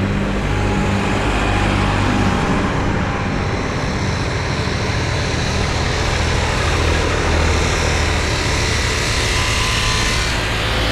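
Diesel farm tractors driving past on a tarmac road: steady engine noise with tyre hiss that grows louder partway through as a tractor draws near.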